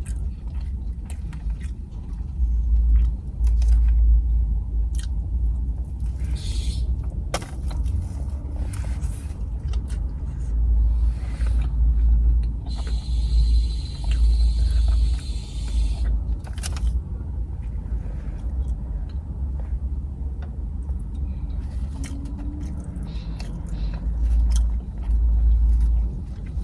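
Chewing and mouth noises from eating a fish sandwich with a fried mozzarella stick in it, with short clicks and crackles, over a steady low rumble.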